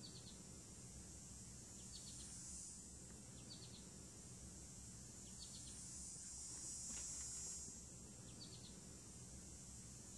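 Faint natural ambience: a steady high chorus of insects that swells and fades, with a small bird giving short clusters of two or three quick high chirps every second or two.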